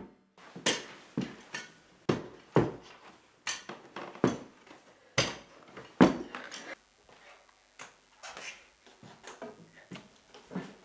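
A long irregular run of hard knocks and clattering thumps, a dozen or so, some sharp and ringing, thinning out and getting fainter toward the end.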